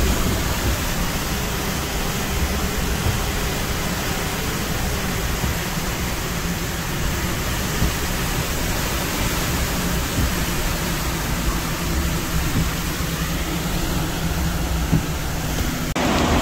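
Steady roar of hurricane wind and driving rain in a hurricane's eyewall: a continuous, even rush with no let-up.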